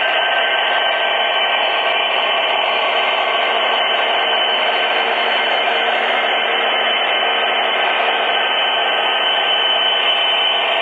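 Several MTH model diesel locomotives hauling a heavy train past at speed: a steady, unbroken rushing hum of electric motors, gearing and wheels on the track, mixed with the engines' diesel sound effects.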